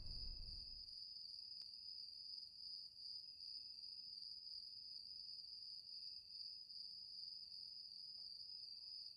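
Crickets chirring steadily: one faint, unbroken high trill. A low rumble fades out in the first second.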